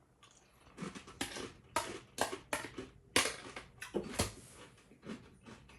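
A person chewing a mouthful of granola cereal, with wheat flakes and granola clusters and a little milk. About a dozen irregular crunches, loudest in the middle, then trailing off into fainter chewing near the end.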